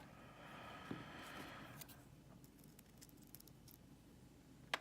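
Faint light clicks and a brief metallic rattle of small lock pins and master wafers being handled on a work surface as a Yale pin-tumbler cylinder is taken apart, with a sharp click near the end.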